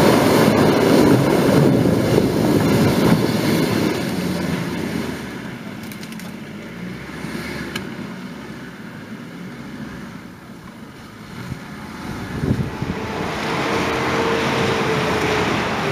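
Jeep Wrangler JK's engine working hard as it drives through deep mud, loud at first and fading over about ten seconds as the Jeep pulls away, with wind on the microphone. About twelve seconds in, the sound gives way to a steady vehicle engine sound with a held whining tone.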